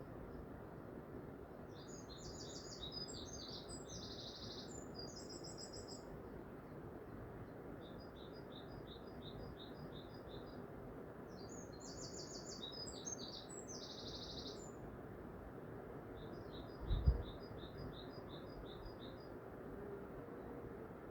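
A small songbird chirping, with quick chirp phrases and rapid even trills repeated about every nine seconds, over steady low background noise. A single dull thump comes about 17 seconds in.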